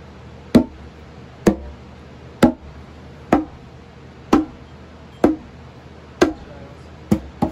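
Conga played with closed (muted) tones: single hand strokes on the drumhead about once a second, each cut short with only a brief ring. Two quicker strokes come near the end.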